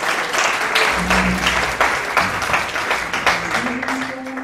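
Audience applauding, a dense patter of many hands clapping, with a few voices faintly underneath.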